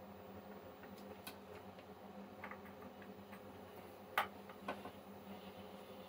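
Scattered faint clicks and light taps as a gold-plated metal cup is handled in a plastic tub of electrolyte, the sharpest click about four seconds in, over a faint steady hum.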